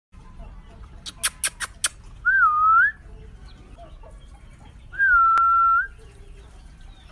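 Five quick sharp clicks in a row, then two whistled notes: the first short and wavering down and up, the second held steady on one pitch, with a single click during it.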